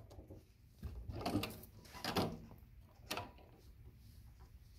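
Handling noises at an industrial sewing machine, made as the fabric and the machine's parts are moved by hand: three soft knocks with some rustle, about one, two and three seconds in.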